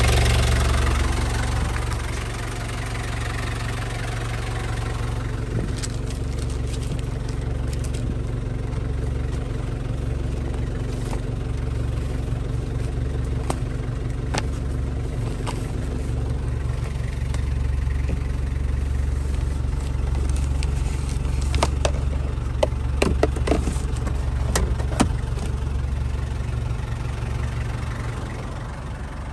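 Nissan TD27 2.7-litre four-cylinder diesel idling steadily, louder for the first couple of seconds and then quieter. A few sharp clicks come near the end.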